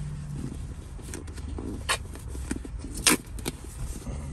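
Fingers working at the glued flap of a cardboard box: light handling noise with two sharp clicks or snaps of the cardboard, about two and three seconds in, the second the loudest. A steady low hum of the car cabin runs underneath.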